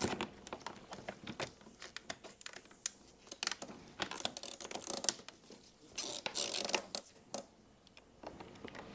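Plastic clicking, tapping and scraping as an LED lighted radiator grill panel is worked by hand into the plastic fairing grill of a Honda Gold Wing, with a longer rustle of scraping about two-thirds of the way through.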